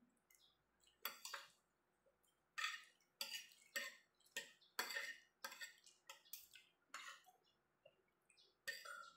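Spoon and fork scraping and clinking on a ceramic plate in a series of short, irregular strokes, about a dozen of them from about a second in until near the end.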